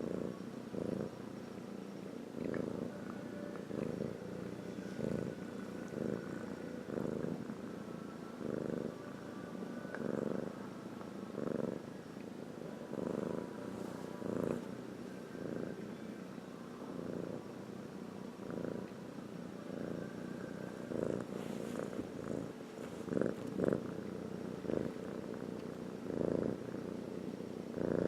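A pet snoring: a steady low rumble that swells with each breath, about one breath every second and a half.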